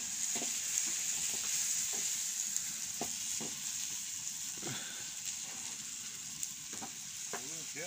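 Chopped tomatoes, onions and green peppers sizzling steadily in a frying pan, with a wooden spatula stirring them and knocking against the pan now and then.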